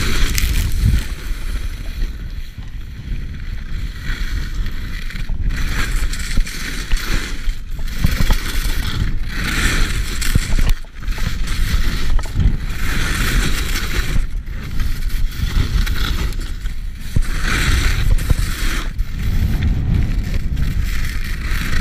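Salomon skis hissing and scraping over snow through a series of turns. The hiss swells every three to four seconds with each turn, over a low rumble.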